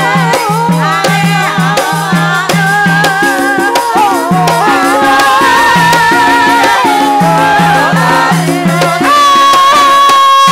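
Loud Javanese gamelan music of the kind played live for ebeg: a high, wavering melody line that slides between notes rides over steady, evenly repeated low notes and percussion.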